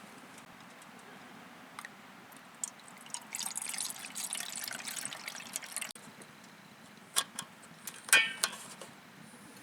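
Water being poured for about two and a half seconds, then a few sharp clinks and knocks near the end.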